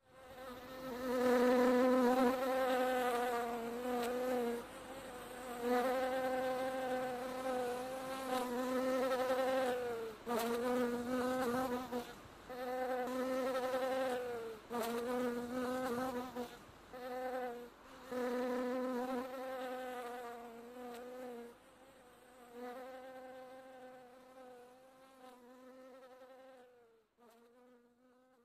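Buzzing of a bee: a wavering, droning hum that breaks off and swoops back every second or two, fading out over the last few seconds.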